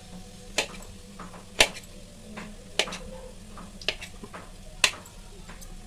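Kitchen knife slicing a soft steamed colocasia-leaf roll on a plate, the blade striking the plate with a sharp click about once a second, five times.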